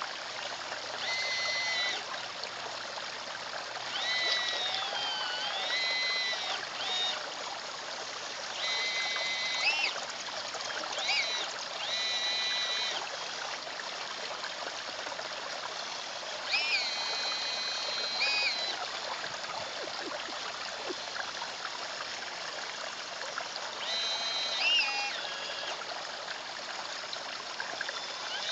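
Pond water trickling steadily, with several short, high electric whines from a radio-controlled CAT excavator's motors as its boom, arm and turntable move, some of them rising and falling in pitch.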